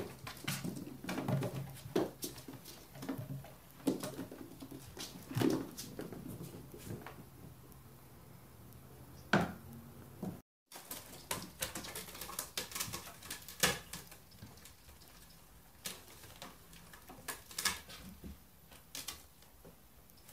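Light, irregular taps, clicks and scuffles of young Siberian kittens playing, their paws and claws on a rug, floor and cardboard box. The sound drops out briefly about halfway through.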